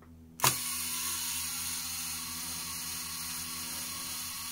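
Ihagee Exakta Varex VX camera shutter fires with a click about half a second in. Its clockwork slow-speed mechanism then whirs steadily, timing a 5-second exposure, which the owner thinks runs a little long because the 70-year-old mechanism has lost some oomph.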